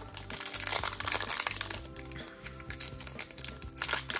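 Foil wrapper of a Pokémon booster pack crinkling as it is handled, over steady background music.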